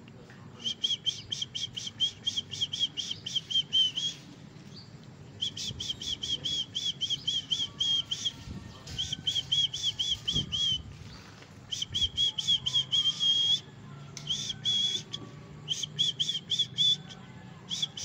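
A whistle sounding in about seven bursts of rapid, evenly spaced high chirping notes, about five a second, with short pauses between the bursts.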